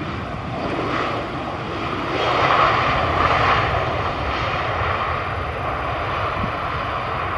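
Airbus A320 airliner's jet engines rumbling and hissing as it rolls out along the runway after landing, spoilers up; the noise swells about two seconds in and then holds steady.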